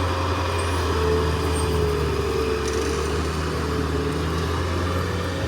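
An engine running steadily at idle, a low hum with a faint wavering higher tone over it.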